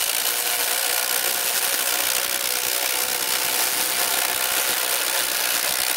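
Two cordless brushless impact drivers, a Kobalt XTR 24V and a Milwaukee M18 Fuel Gen 3, both set to high, hammering together at full speed as they drive screws. Their rapid impacts blend into one continuous, loud rattle that holds steady throughout.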